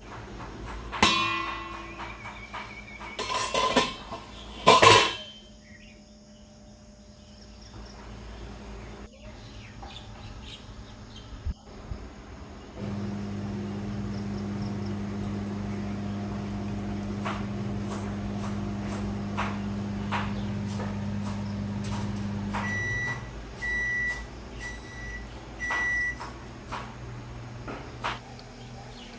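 A steady low electrical hum for about ten seconds, which stops and is followed by four short high beeps, as from a kitchen appliance signalling the end of its cycle. Near the start there are a few loud, short, pitched sounds.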